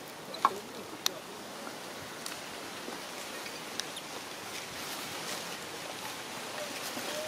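Dry fallen leaves crackling and rustling under a young macaque's hands and feet over a steady outdoor hiss, with two sharp clicks in the first second or so.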